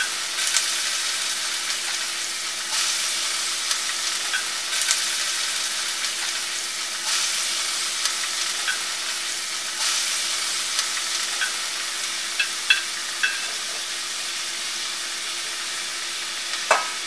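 Chopped red onions sizzling in hot oil in a stainless steel pan: a steady hiss with a few small crackles. Near the end a wooden spatula stirs them.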